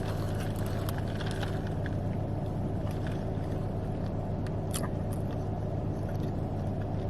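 A steady low mechanical hum, like an engine or motor running, with a few faint clicks scattered over it.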